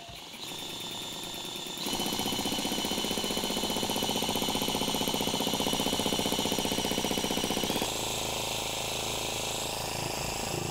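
Cordless drill driving a 3D-printed piston vacuum pump, running with a fast rhythmic pumping and a steady high motor whine as it draws air out of a sealed jar. It gets louder about two seconds in and drops back near eight seconds.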